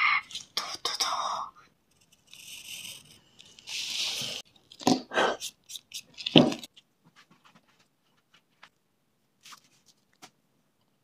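A child's voice briefly at the start, then a pencil on paper: a few scratchy strokes and louder rustles, followed by faint light scratching and ticks as lines are drawn.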